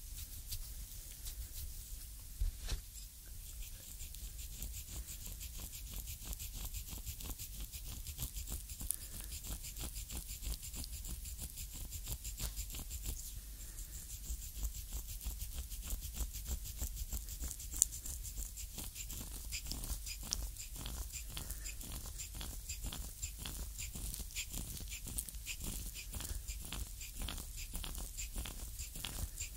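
Foot reflexology massage: thumbs and a wooden reflexology stick pressing and rubbing into the sole, heard up close as a steady stream of small skin clicks and crackles. The clicks grow denser in the second half.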